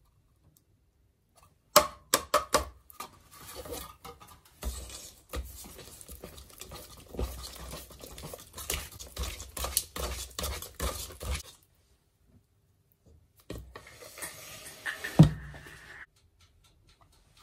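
Metal kitchen utensils clinking and scraping against a mixing bowl and cookware, with a quick run of sharp knocks about two seconds in and one loud knock near the end.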